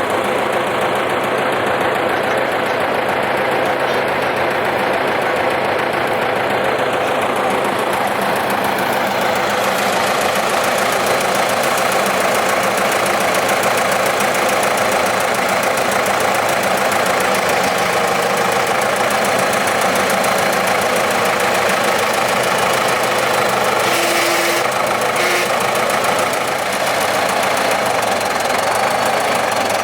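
Bulldozer's diesel engine running steadily while the machine sits stuck in mud.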